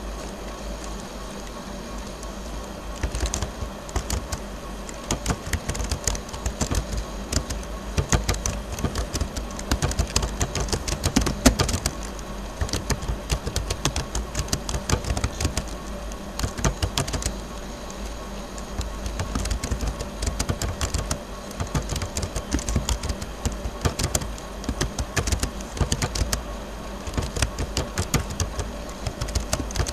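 Typing on a computer keyboard: a quick, irregular run of key clicks with a short pause a little past halfway, over a low steady hum.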